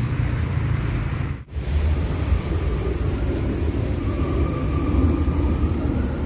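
Steady low rumble with the even hiss of a garden sprinkler spraying water over plants. The sound drops out briefly about a second and a half in; the hiss is stronger after it.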